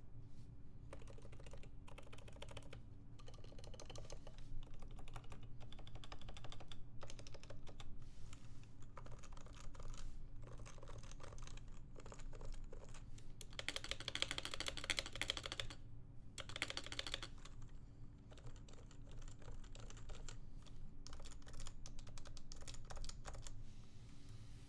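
Irregular runs of quick, light clicks and taps over a steady low hum, with a denser, brighter flurry of clicks past the middle.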